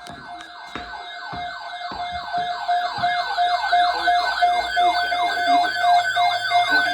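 Electronic siren-style alert sound on a radio broadcast: a fast yelp that falls in pitch about three times a second over a steady tone, getting gradually louder.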